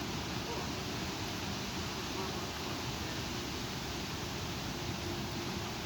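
Strong thunderstorm wind blowing steadily, with a rumbling buffet on the microphone.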